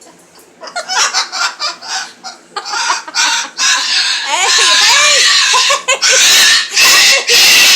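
Pet bird squawking and screeching: a run of short harsh squawks about a second in, then louder, near-continuous screeching with a few whistled notes from about the middle, harshest near the end. It is the kind of fit the owner calls sass.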